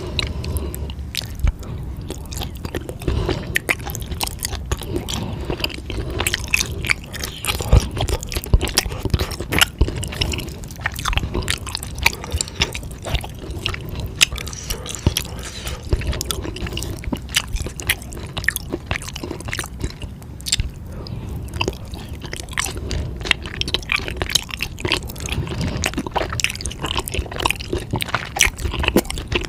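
Close-miked chewing of food: a constant run of wet, squishy mouth sounds and irregular crunchy clicks, with no pause.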